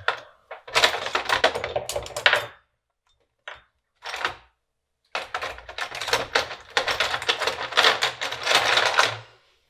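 Rapid clicking and rattling of a USB-C laptop dock's casing and circuit board being worked by hand, the board stuck in with double-sided tape. It comes in two stretches, about two seconds long and then about four seconds, with a few lone clicks between.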